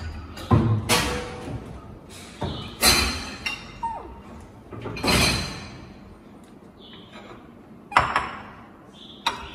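Ceramic plates and bowls being handled and set down on a hard kitchen countertop: a handful of separate knocks and clinks, the loudest about half a second, three seconds and five seconds in, and another near eight seconds.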